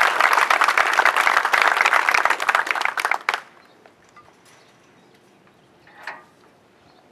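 Audience applauding, many hands clapping, dying away about three seconds in to a quiet background with one short faint sound about six seconds in.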